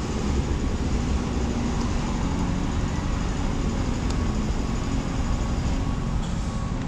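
1996 Toyota Corolla's 1.8 L 7A-FE four-cylinder engine idling steadily while misfiring on cylinder 1.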